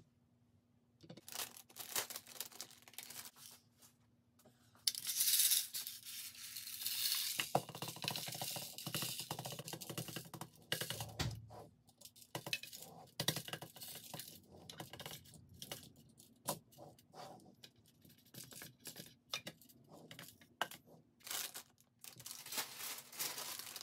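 Small plastic Lego pieces clicking and clattering as they are handled and tipped around in a clear plastic box, with stretches of crinkling from plastic parts bags.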